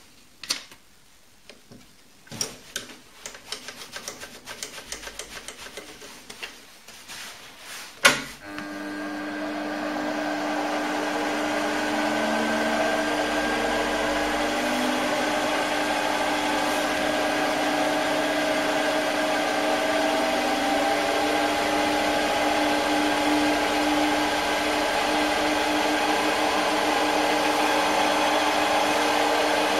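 A run of clicks and knocks as the milling setup is handled, then a sharp click about eight seconds in as the Optimum D180x300 Vario mini lathe is switched on. Its spindle motor spins up over a couple of seconds and runs steadily with a whine, the speed turned up partway through.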